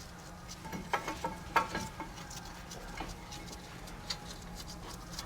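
Scattered light metallic clinks and ticks, the loudest bunched about one to two seconds in, a few with a brief ring, from wrenches and brake parts being handled while the caliper bracket is taken off.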